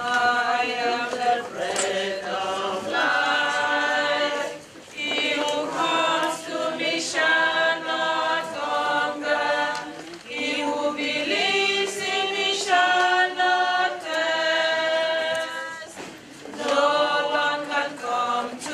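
Church choir singing a hymn in several voices, in phrases of a few seconds with short breaths between them.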